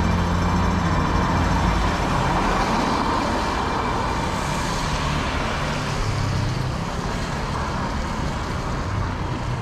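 Road traffic on wet asphalt: a steady hiss of tyres and engines, swelling as a vehicle passes midway.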